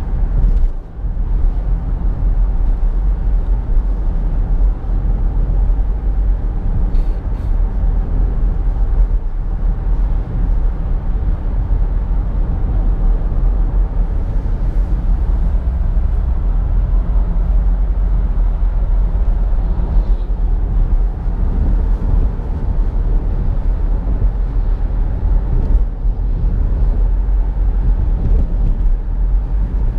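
2017 Nissan Rogue SV AWD driving on the highway: steady road and engine rumble, with a few faint ticks.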